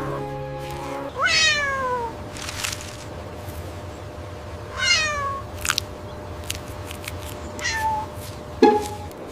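Cat meowing about four times: two long falling meows, then two short ones near the end. Soft background music plays for the first second before dropping away.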